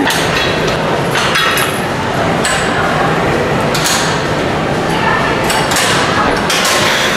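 Metallic clanks and knocks of gym equipment, a few scattered sharp hits, over a steady rush of noise from a body-worn microphone moving with the wearer.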